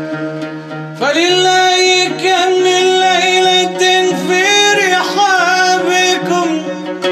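A male nasheed singer enters about a second in with a long, ornamented melismatic line of held, wavering notes, over a plucked-string accompaniment that plays alone at first and returns near the end.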